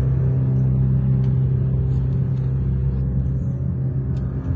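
A steady, low rumbling drone of dark, suspenseful background music, with a few faint ticks.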